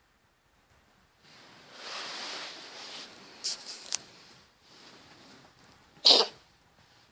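A pet cat giving one short, sharp cough about six seconds in, after a few seconds of softer breathy noise. The owner suspects a respiratory problem.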